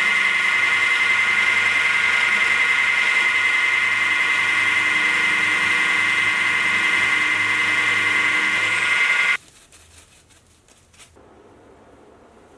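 End mill on a milling machine cutting an insert seat into a cold drawn steel body: a loud, steady high-pitched whine of the cutter in the steel. It cuts off suddenly about nine seconds in, leaving a few faint ticks.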